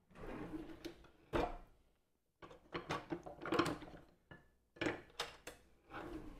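Kitchenware being handled out of sight: a string of irregular clatters and knocks, with a drawer or cupboard being worked among them.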